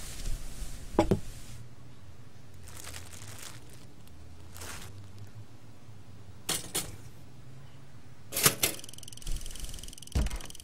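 Short clicks and whooshes as a slice of bread is handled and dropped into a toaster, the loudest clack about eight and a half seconds in, followed by a steady electric buzz.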